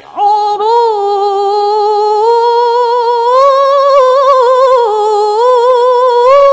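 A woman reciting the Quran in the melodic tilawah style: one long drawn-out phrase held on a single breath, its pitch turning in slow ornaments and rising a little near the end.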